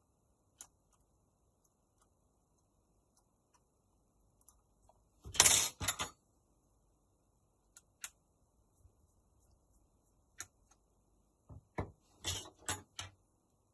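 Small clicks and clattering of tools and small phone parts being handled on a workbench while a smartphone is taken apart. Single ticks here and there, a louder burst of clatter about five seconds in, and another run of clicks near the end.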